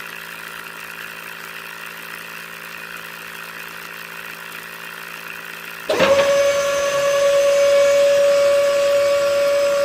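A small electric motor hums quietly and steadily. About six seconds in, a louder, higher-pitched motor whine starts abruptly and holds steady.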